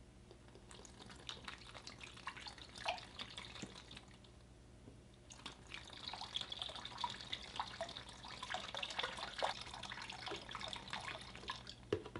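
Water pouring from a plastic bottle into the water chamber of a Mediflow waterbase pillow, faint: scattered drips and splashes at first, becoming a steadier pour about halfway through.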